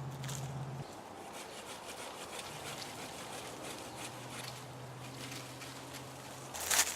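A yaupon branch being cut: irregular scraping and snapping of wood, with a louder noise near the end.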